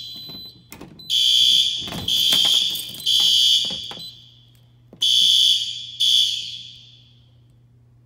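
Fire alarm bells on a Gamewell-FCI S3 panel sounding in the temporal-3 evacuation pattern: three strokes about a second apart, a pause, then two more, each ringing out as it dies away. The alarm stops before the third stroke of the last group as the panel is silenced. A couple of light clicks come early on.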